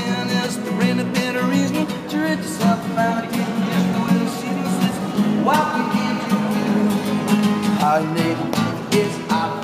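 A man singing while strumming an acoustic guitar, with a long held note about halfway through that slides up at its start.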